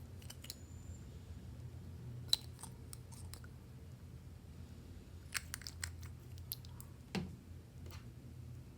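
Fluffy slime being squeezed and worked by hand, giving scattered small crackles and clicks in two clusters, with a sharper pop about two seconds in and a duller click near the end, over a steady low hum.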